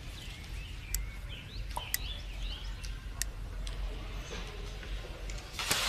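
Small birds chirping in the background, a few short twittering calls in the first half, over a low steady hum. A few sharp clicks and a brief rustle near the end come from handling nearby.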